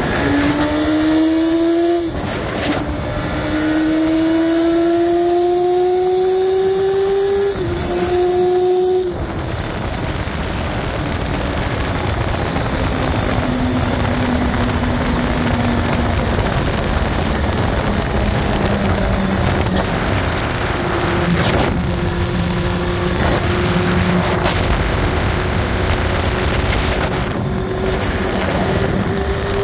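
Honda CBR sport motorcycle's engine pulling hard through the gears, its pitch climbing and dropping back at each of two upshifts. From about nine seconds in it holds a steady high-speed cruise, with strong wind rush over it.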